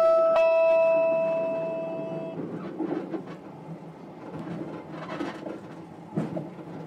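The last note of the train's on-board announcement chime, a bell-like tone, rings and fades out over about two seconds. After it comes the quiet rumble of the passenger car interior, with a few faint knocks.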